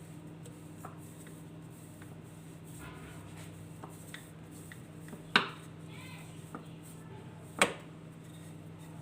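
Kitchen handling noises on a work surface: light clicks and rustles, then two sharp knocks about two seconds apart, as of utensils or a rolling pin set down on the counter. A steady low hum runs underneath.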